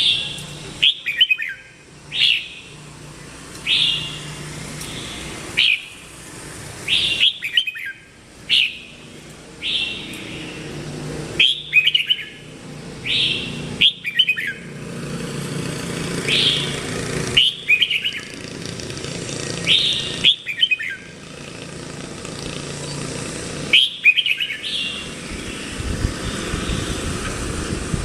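Red-whiskered bulbul singing: short, bright chirping phrases repeated every second or two. A steady low rumble, like traffic, runs underneath and grows louder in the second half.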